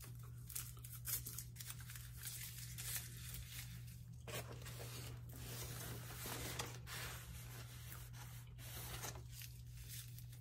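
Paper wrapper being torn and worked off a drinking straw: soft tearing and crinkling noises with small clicks, busiest in the middle of the stretch.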